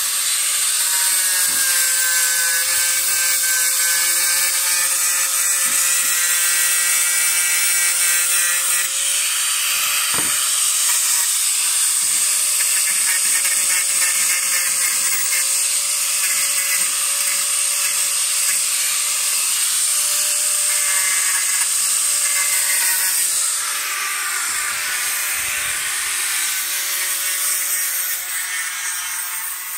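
Electric angle grinder running steadily under load, its disc grinding rust off small steel pieces, a child's toy anvil and vise, with a constant high whine and harsh scraping hiss. It grows quieter in the last few seconds.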